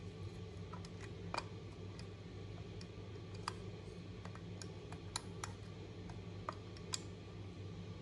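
Combination wheels of a key safe lock box being rolled by thumb, giving small irregular clicks as the wheels step through their numbers, a few of them sharper, over a steady low hum.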